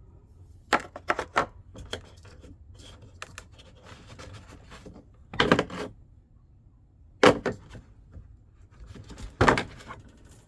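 Hand tools being handled and rummaged through: scattered sharp clicks and clatters, a few at a time, about a second in, around the middle, and twice more near the end.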